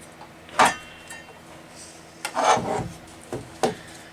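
Handling clicks and rubbing from a Parkside PHKSA 20-LI A2 cordless circular saw as its spindle lock is pressed in and worked until it engages: one sharp click about half a second in, a scraping clatter near the middle, then two quick clicks near the end.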